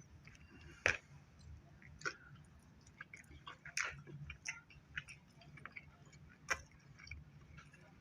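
A person eating charbroiled chicken dipped in spicy sauce: quiet chewing with scattered sharp mouth clicks and smacks, the sharpest a little under a second in, at about two seconds, near four seconds and at about six and a half seconds.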